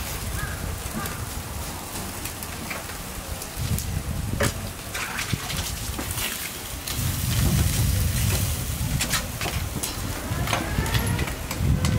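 Eel sizzling and crackling over a charcoal grill, with scattered sharp pops and a low rumble underneath that grows louder about halfway through.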